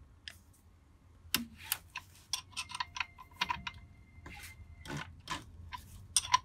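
Light, irregular clicks and taps of a hand tool and flashlight against the exposed gears and shaft splines of a motorcycle engine with its sump off, starting about a second in and coming thick and fast in the middle.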